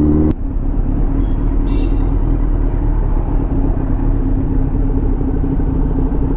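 Motorcycle engine running steadily while riding at speed, with wind rushing past the microphone. Just after the start the sound drops suddenly to a slightly quieter, steady engine drone.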